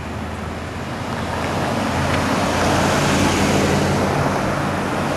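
Motor vehicle on the road, its engine and tyre noise swelling to a peak about three seconds in and then easing slightly, with a steady low engine hum underneath.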